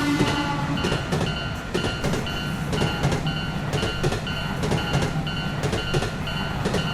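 Train passing over a railroad crossing, its wheels rumbling and clacking on the rails, while the crossing's warning bell keeps ringing in a steady repeating pattern.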